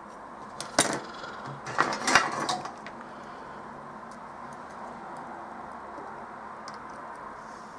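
A few light clicks and clatters of small components and hand tools being handled on a workbench while a resistor is fitted to a circuit board: once about a second in and a cluster around two seconds in, over a steady background hiss.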